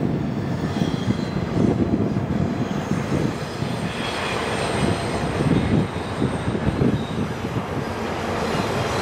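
Freight train cars (autoracks and stacked container cars) rolling around a curve: a steady rumble and clatter of steel wheels on rail, with faint high-pitched wheel squeals coming and going.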